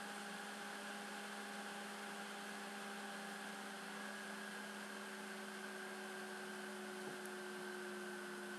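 A steady faint hum over a soft hiss, several tones held level, the higher ones sinking slightly in pitch: background hum of the recording setup.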